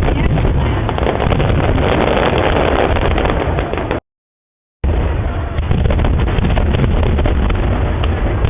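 Fireworks bursting overhead, a dense run of booms and crackles over a steady low rumble, with wind buffeting the microphone. The sound cuts out entirely for nearly a second about four seconds in, then resumes.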